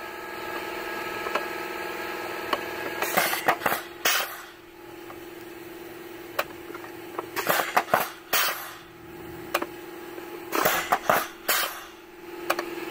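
Air-shift servo valves on a Caterpillar 7155 semi-automatic transmission venting in short, sharp hisses as it is shifted through the gears, in three clusters of several bursts about three to four seconds apart. A few single clicks come between the clusters, over a steady hum.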